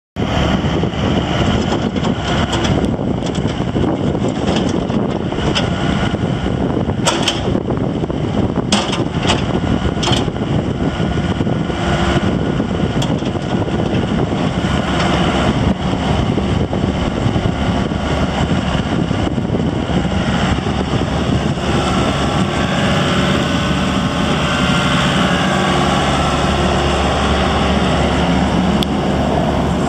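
Daewoo Solar 55V midi excavator's diesel engine running while the boom and arm are worked, with a few short knocks about seven to ten seconds in. The engine note settles into a steadier tone about two-thirds of the way through.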